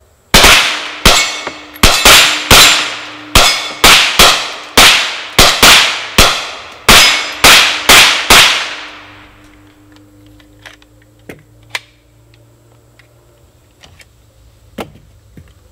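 Two Hi-Point pistol-calibre carbines, a 995 in 9mm and a 4595 in .45 ACP, firing together in a rapid string of about seventeen shots over roughly eight seconds, each shot with a short ringing tail. After that come faint clicks of the carbines being handled.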